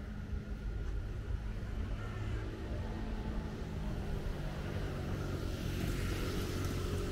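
An engine running steadily with a low rumble. A hiss rises over it near the end.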